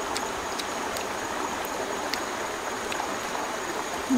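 Stream running steadily, with a few faint clicks.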